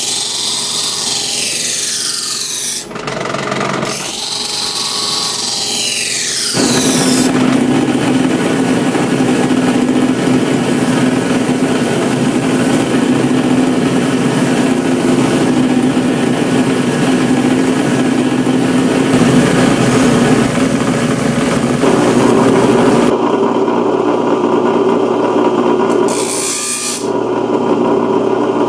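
A high-carbon steel knife blade being ground on electric grinders. For the first six seconds there is a high, hissing grind that rises and falls as the blade is worked against the abrasive, with a short break near three seconds. From about six seconds a grinder motor hums steadily under the grinding noise, and near the end the sound changes to a different motor with a lower hum driving a thin wheel against the blade's spine.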